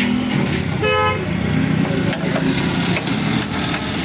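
Street traffic noise with a steady low hum, and one short vehicle horn toot about a second in.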